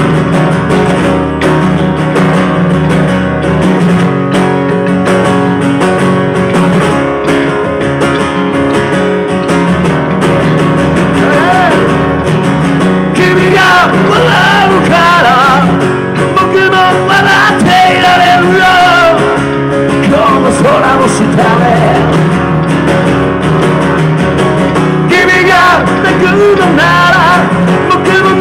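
Live rock song played on acoustic guitar and electric bass, the guitar strummed steadily. From about halfway a voice sings long, wavering lines with no clear words.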